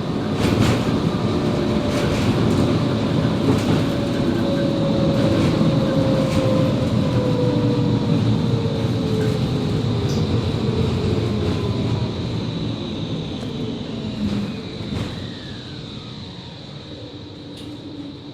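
Interior running noise of a Končar TMK 2200 low-floor tram: wheel-on-rail rumble with occasional knocks, a steady high-pitched tone, and the electric traction drive's whine falling in pitch. The noise grows quieter over the last few seconds as the tram slows.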